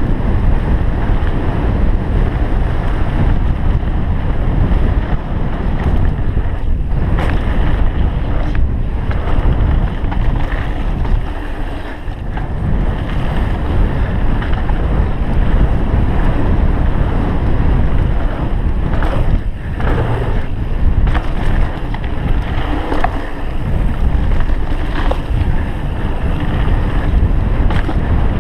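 Wind rushing over a GoPro Hero 3's microphone on a fast downhill mountain-bike run, with tyres rumbling on the dirt trail and scattered knocks and rattles from the bike as it hits bumps.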